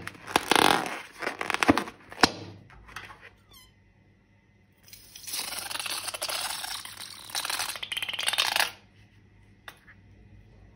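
Crinkling, tearing and squishing handling noises from a rubber balloon and its slime contents being worked. They come in two stretches with a short pause between, the second a steady dense crackle, and a couple of faint clicks follow.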